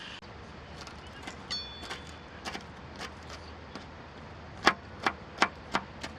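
Hard objects clicking and knocking by hand: scattered light clicks, a short ringing metallic clink about one and a half seconds in, then four sharp knocks in quick succession near the end.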